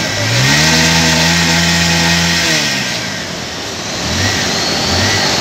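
SUV engine revving hard as the vehicle pushes through a fast-flowing flooded river. The revs rise about half a second in, hold for about two seconds, then fall away, followed by lower uneven engine pulses. The steady rush of the floodwater runs underneath.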